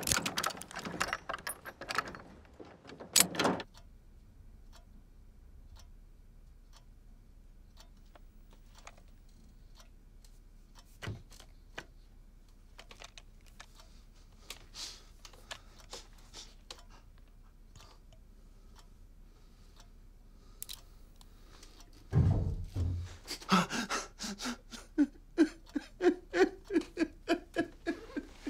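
A heavy padlock and keys rattle and clack against a metal hasp for the first few seconds, followed by faint scattered clicks. About 22 seconds in comes a heavy thump, then a man sobbing in short repeated gasps, about two a second.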